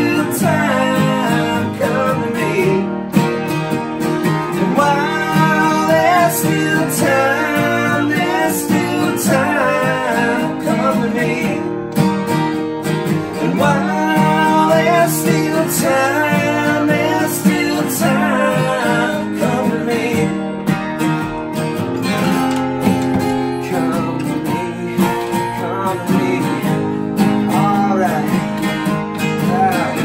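Two strummed acoustic guitars with two male voices singing, performing an alt-country song live.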